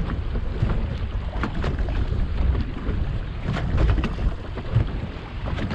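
Wind rumbling on the microphone, with choppy water slapping and splashing against the side of a pirogue's hull in rough seas, in irregular knocks.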